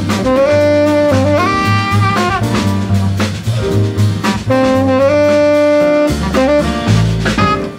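Small jazz group recording: a saxophone plays long held notes that step up and down in pitch, over double bass and a drum kit.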